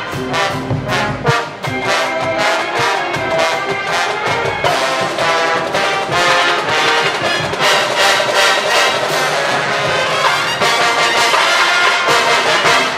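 Marching band brass section and drumline playing a Latin jazz arrangement, loud and full, with steady drum strikes under the horns.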